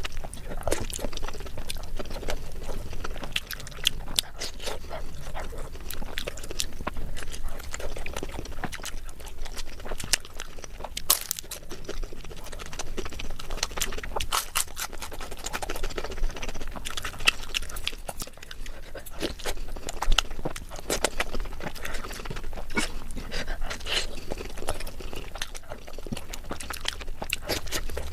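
Close-miked eating for ASMR: chewing with wet mouth smacks and crunches, a run of irregular sharp clicks.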